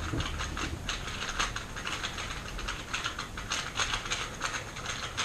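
A 3x3 speedcube being turned fast in a solve: a dense, irregular run of plastic clicks and clacks, several a second.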